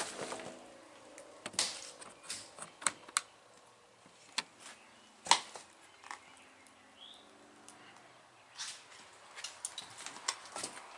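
Footsteps crunching and clicking over plaster debris and rubble on a trashed floor: irregular sharp steps and cracks, the loudest about five seconds in.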